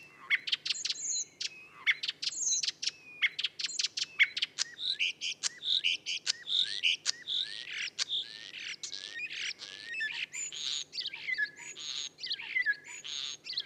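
Common starling song played from a recording: a rapid, varied run of sharp clicks, whistles and chattering rattles, the bird weaving imitations of other species' calls into its song. It opens with a string of quick clicks and grows into denser whistling chatter from about four seconds in.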